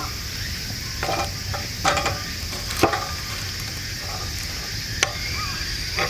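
Sticks and wood shavings being handled and set in a metal mesh fire basket for lighting: a few sharp wooden and metal clacks about a second apart, with light rustling. A steady high tone and a low rumble sit underneath.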